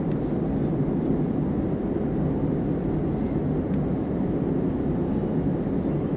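Cabin noise of an Airbus A320-family airliner climbing after takeoff: a steady, deep rumble of engines and airflow heard from a window seat.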